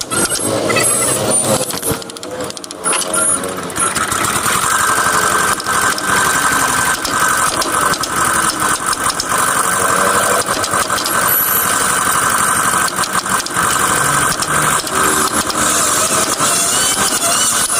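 A handheld power tool running steadily while working wood, with a fast rough chatter. It is more broken up for the first few seconds, then runs evenly.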